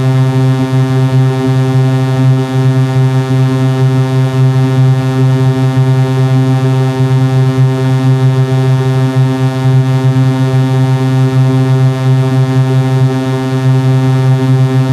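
Synthesizer tone held on one low note without a break, buzzy with many overtones: a carrier tone meant to be fed into the IL Vocodex vocoder.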